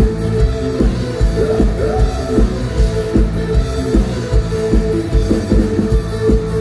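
A live rock band playing loudly through a concert PA: kick drum on a steady beat under bass and electric guitar.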